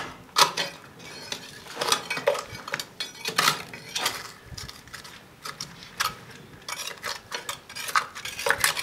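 Irregular sharp clinks and knocks of hard pieces of broken concrete and stone rubble striking one another as the debris is handled.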